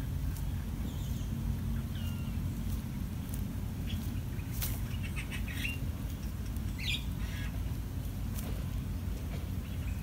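Brief, high chirps from small birds at the nest, a few scattered over several seconds, with a handful of sharp clicks. A steady low rumble of background noise runs underneath.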